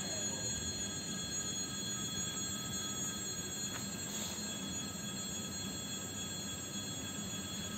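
EG2Tv 'Ivolga 2.0' electric multiple unit standing at the platform, its electrical equipment giving a steady hum with several high-pitched whining tones that hold their pitch throughout.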